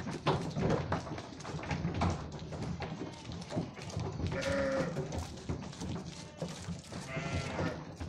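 Merino ewes bleating, with one loud bleat a little past halfway and another near the end, amid frequent short knocks and scuffles.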